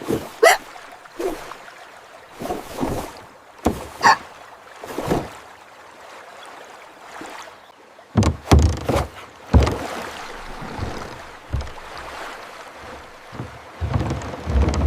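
Water splashing and sloshing around a small boat in irregular bursts over a faint steady wash, with several heavier low thumps about eight seconds in and again near the end.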